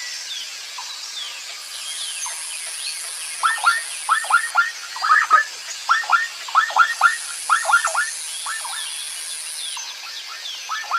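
Outdoor wildlife ambience: runs of two to four short downward-sweeping chirps, thick from about three and a half seconds in until near the end, over scattered fainter high chirps and a high steady hiss that switches on and off every couple of seconds.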